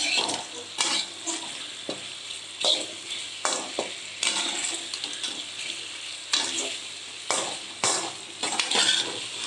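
Twice-fried chicken pieces being stirred with a spatula through a sizzling sauce in a kadai: a steady sizzle broken by irregular scrapes and knocks of the spatula against the pan as the chicken is coated.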